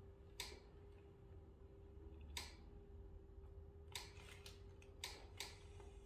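Near silence: room tone with a faint steady hum and about six soft, faint clicks scattered through it.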